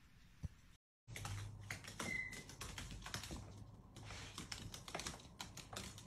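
A caique parrot's feet and claws tapping on a hardwood floor as it walks and hops: a quick, irregular run of light clicks. A brief high peep comes about two seconds in.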